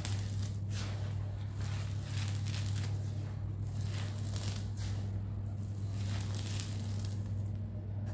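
Dry, dusty crumbled sand-cement grit pouring from a hand onto a heap in repeated streams: a gritty hissing rustle that swells and fades with each pour, over a steady low hum.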